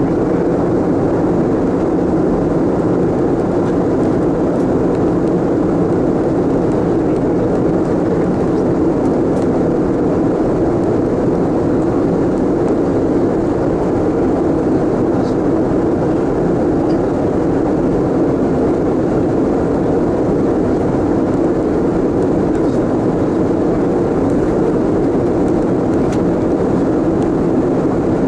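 Steady cabin roar of a Boeing 747-400 in flight, heard from the upper deck: engine and airflow noise, deep and unchanging.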